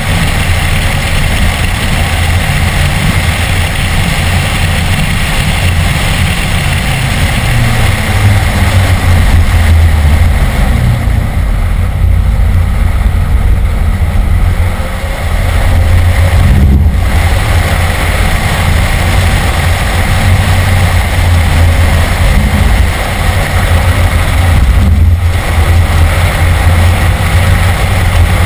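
BMW E46 M3's 3.2-litre straight-six engine running hard at track speed, heard from inside the cabin along with road and wind noise. The sound drops off briefly twice, about halfway through and again about four-fifths of the way through.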